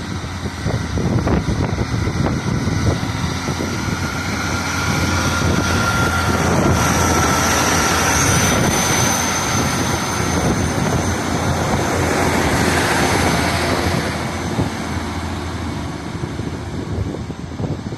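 Class 153 diesel railcar running past after sounding its horn: a steady rumble that builds, holds for several seconds, then eases away, with wind buffeting the microphone.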